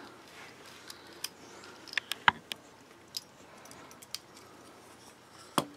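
Small metal clicks and ticks of a bit driver and folding-knife parts as a screw is worked out of the knife and the parts are handled, scattered one at a time with a louder click near the end.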